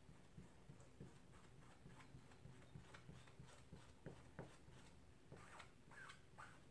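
Near silence: faint, irregular soft taps and brushing of red paint being dabbed through a stencil onto a painted wooden board, over a low steady hum.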